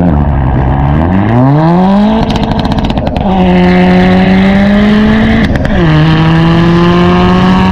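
Tuned 11th-gen Honda Civic Si's turbocharged 1.5-litre four-cylinder pulling hard through its Remark exhaust. The revs climb quickly through first gear and drop at an upshift about three seconds in. They then climb through second and drop again at another upshift near six seconds, before climbing once more. A quick rattle of clicks comes with each gear change.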